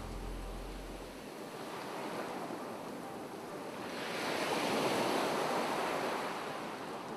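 Ocean surf washing onto a shore, a wave swelling up and breaking about halfway through, then falling back.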